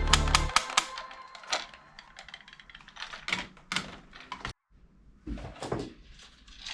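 Irregular sharp plastic clicks and clacks from toy guns being handled and cocked, with a music bed that cuts off about half a second in.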